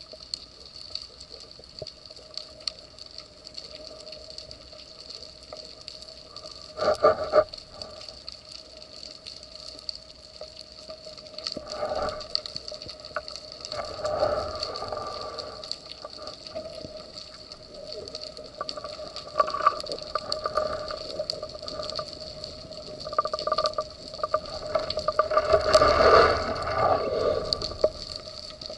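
Underwater sound picked up through a camera housing: a steady faint hum, with muffled swishing surges from the diver's movement. The surges come every few seconds and are loudest near the end.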